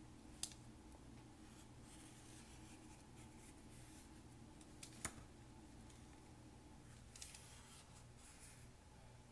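Faint scratching of a marker drawing circles on baking paper, in short strokes, with two soft clicks.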